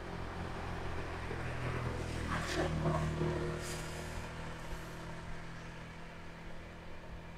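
A motor vehicle's engine humming as it passes along the road, growing louder to a peak a few seconds in and then fading away.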